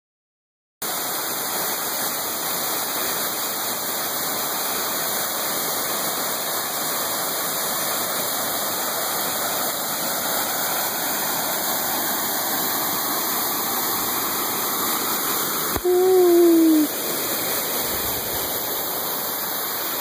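Waterfall pouring into a rocky plunge pool: a steady rushing of falling water. About sixteen seconds in, a click is followed by a short voice-like sound that falls in pitch.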